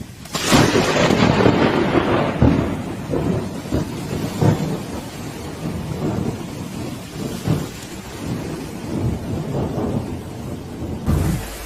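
Nearby thunderclap from a lightning strike: a sudden loud crack about half a second in, then thunder rumbling on with repeated low booms and slowly fading, with rain falling underneath.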